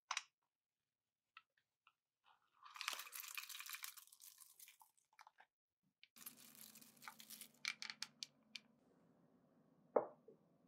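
Farmer's cheese being pressed through a plastic potato ricer: a click as the lid closes, then a rough crunching noise for about two seconds as the curds are forced through the holes, followed by a few sharp plastic clicks. Near the end, a single loud knock as a glass bowl is set down on a wooden cutting board.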